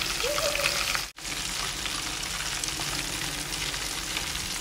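Breaded chicken drumsticks deep-frying in hot oil: a steady sizzle with fine crackling. The sound cuts out for an instant about a second in.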